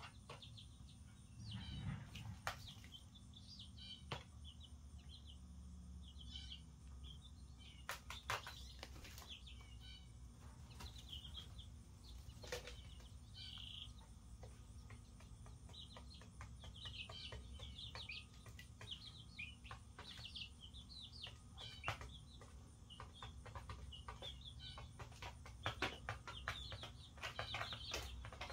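Young chicks, a couple of weeks old, peeping in short high chirps, with scattered sharp taps and clicks over a steady low hum.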